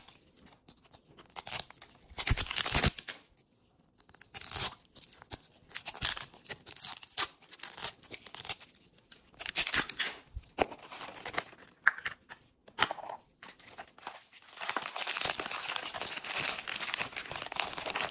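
Plastic wrapper layers being torn and peeled off a Miniverse toy capsule ball in a series of short rips. About fifteen seconds in this gives way to steady crinkling of a small plastic packet handled between the fingers.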